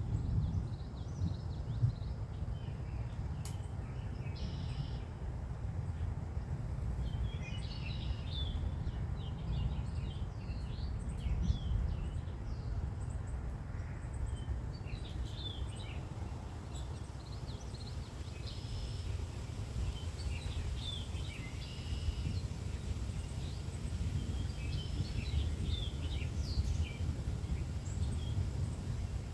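Songbirds chirping and singing in short repeated phrases over a steady low rumble of wind as a storm blows in.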